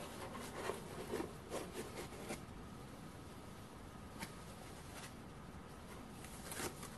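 Faint rustling and scuffing of a foam packing tray being lifted out of a cardboard box and set down, with a few light knocks and one sharper click about four seconds in.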